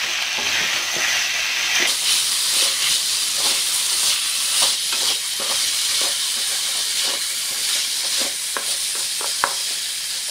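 Boiled raw plantain pieces sizzling in hot oil in an aluminium kadai while being stirred with a wooden spatula: a steady frying hiss with scattered clicks and scrapes of the spatula against the pan. The pieces are being fried dry so that no water is left.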